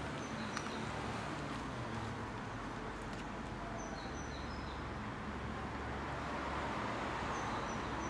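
Outdoor ambience: a steady low background hum with a few faint, short high bird chirps, near the start, around the middle and near the end.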